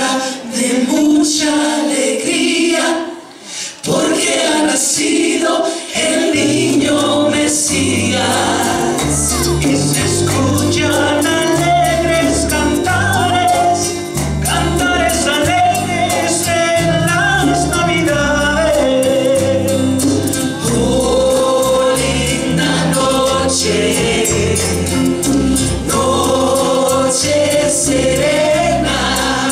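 Live Christmas music: a group of women singing together, with backing voices, hand drums and guitar. The sound drops briefly about three seconds in, then picks up again, and a bass line comes in about six seconds in.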